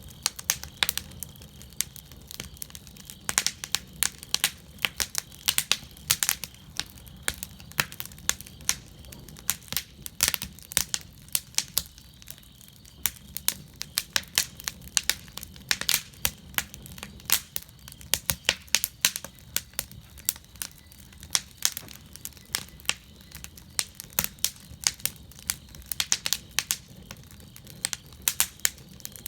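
Fire crackling in a fire cauldron: many irregular sharp pops and snaps over a low steady rumble.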